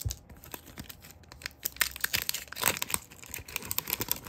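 Plastic wrapper of a trading card pack crinkling and tearing as it is ripped open and the cards are handled, in irregular crackles with a louder burst about midway.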